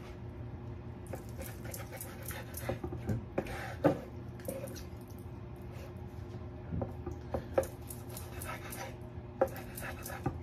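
Knife cutting cooked lamb chops on a wooden cutting board, with metal tongs holding the meat: scattered short knocks and clicks over a steady low hum.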